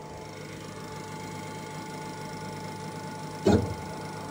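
Steady hum of the Ghost Gunner CNC mill's spindle spinning an edge finder, with one brief loud buzz about three and a half seconds in.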